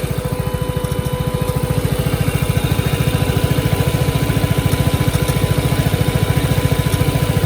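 Vespa GTS 300 HPE's single-cylinder engine idling with an even, steady pulse, its radiator cooling fan running, switched on because the engine is hot, which is normal.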